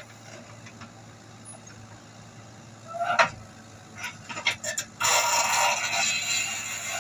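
Komatsu WB93R backhoe loader's diesel engine running low and steady, with a sharp loud knock about three seconds in, a few lighter knocks after it, and a loud hissing rush over the last two seconds.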